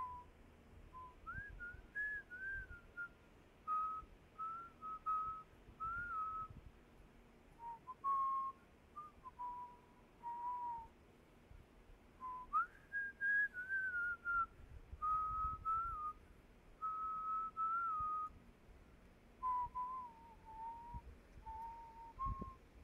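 A person whistling a slow tune: single clear notes rising and falling in short phrases, with brief pauses between them.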